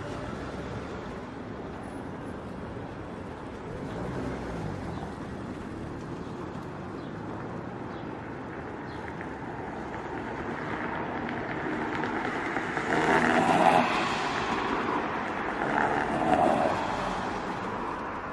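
Congested street traffic heard from inside a slow-moving vehicle: a steady rumble of engines and road noise, with two louder passing sounds about two-thirds of the way through and again near the end.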